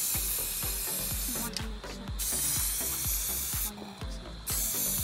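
Aerosol spray-paint can spraying onto a tub of water in three hissing bursts, with short pauses about a second and a half in and again near the end, laying a paint film on the water for hydro dipping. A low rhythmic pulse runs underneath at about four beats a second.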